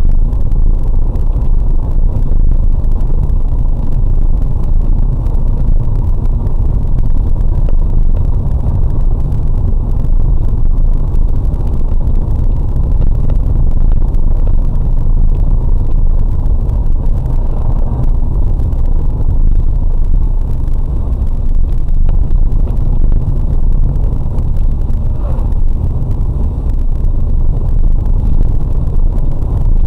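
Steady rumble of road and engine noise inside a car's cabin while it cruises along an open highway.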